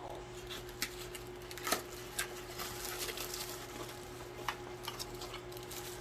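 Light handling of packaging: a cardboard box and a plastic-bagged vacuum accessory being lifted out and turned over, with a few soft clicks and rustles over a faint steady hum.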